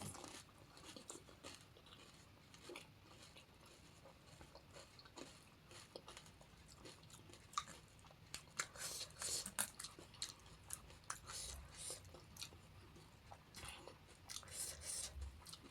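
Close-up eating sounds of panipuri: crisp puri shells, chips and bhuja crunching and being chewed, in faint quick clicks that bunch up about eight to ten seconds in and again near the end.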